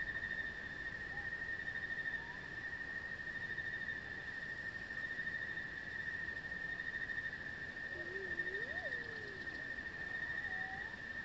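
A steady, high-pitched insect trill in chorus, unbroken throughout. Faint, short wavering calls sound about eight to nine seconds in.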